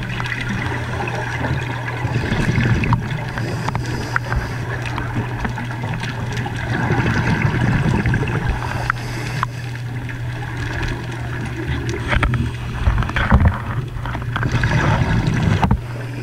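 Underwater sound picked up through a camera housing: a steady low hum under a wash of water noise, with scattered small clicks and knocks.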